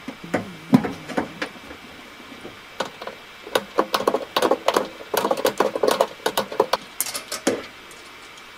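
Hand socket ratchet clicking in quick runs while turning a screw inside a car's tailgate panel. A few separate knocks of the tool come first.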